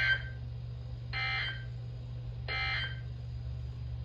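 Three short bursts of Emergency Alert System SAME data tones, the rasping digital 'end of message' code that closes an EAS alert, spaced about a second and a quarter apart.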